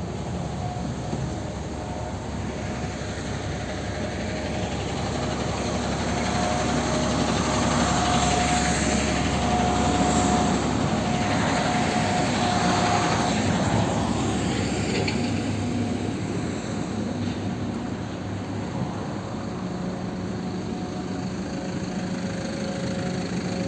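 Vehicle running noise that swells louder through the middle and eases off again, with steady engine tones underneath.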